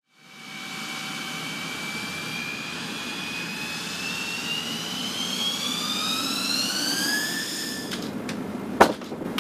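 U-2 Dragon Lady's General Electric F118 turbofan running on the ground, its whine rising steadily in pitch as it spools up. It cuts off near the end, followed by one sharp knock.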